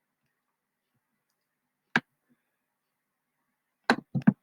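Computer mouse clicking: a single sharp click about two seconds in, then a quick run of three or four clicks near the end, with near silence between.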